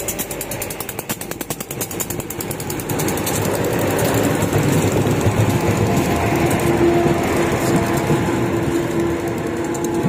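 Diesel multiple-unit passenger train passing close by at speed, its underfloor engine running with a rapid rattling clatter. It gets louder from about three seconds in, and a steady droning tone joins after about six seconds.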